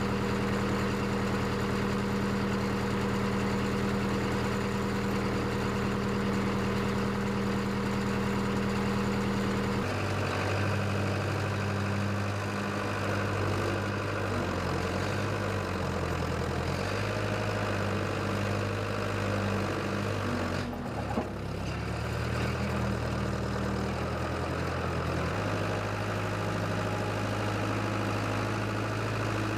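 Case 580CK backhoe's engine running steadily, its note changing abruptly several times from about ten seconds in.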